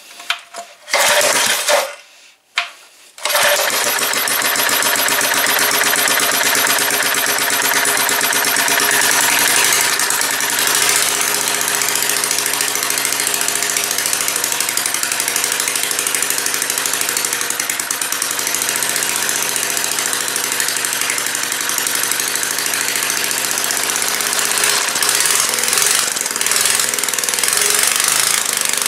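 1973 Briggs and Stratton edger's small single-cylinder engine being started: a couple of short bursts, then it catches about three seconds in and keeps running loud and steady with a rapid, rattling exhaust beat. It is running through its old muffler, which is rusted through with not much left of it.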